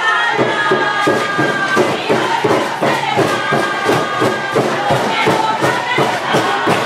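Spectators cheering and shouting during a play, over music with a fast, steady beat of about three beats a second.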